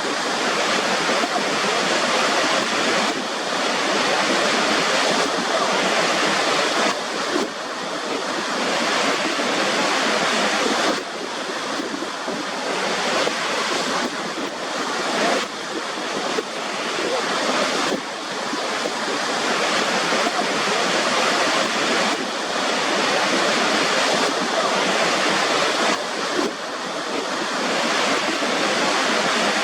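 Steady rushing water, an even dense noise with several sudden small dips in level that build back up over a few seconds.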